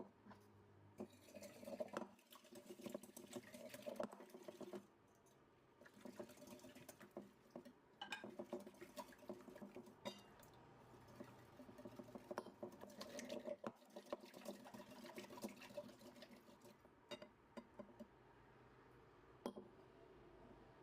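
Faint kitchen sounds of cornbread batter ingredients being mixed in a bowl: light clinks and liquid sounds in stretches, with short pauses about five seconds in and near the end.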